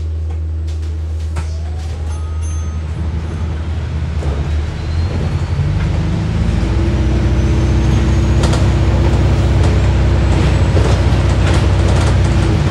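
Hybrid bus heard from inside the cabin, pulling away under hard acceleration. A steady low engine drone grows louder about halfway through, while a thin electric drive whine climbs in pitch. Light rattles and clicks come from the interior.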